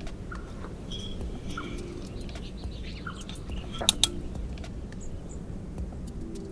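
Small birds chirping here and there. About four seconds in, a metal spoon clinks twice against the cooking pot as the sauce is stirred.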